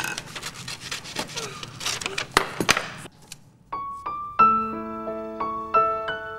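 Paper rustling and scissors snipping through it for about three seconds. Then a keyboard melody of held notes over a low sustained note starts just under four seconds in.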